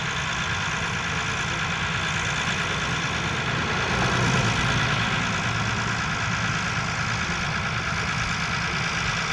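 Tractor engine running steadily, swelling briefly about four seconds in.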